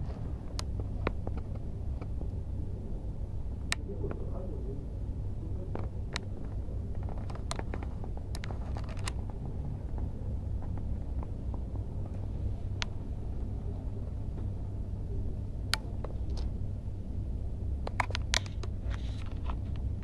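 Steady low rumble of distant city traffic, with scattered light clicks.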